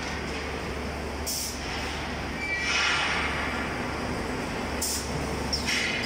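Leaf-spring production line machinery running: a steady low hum, with three short high hisses and a louder rushing noise around the middle.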